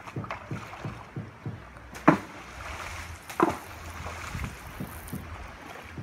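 A person wading through shallow river water, splashing and sloshing with each stride, with two louder splashes about two and three and a half seconds in.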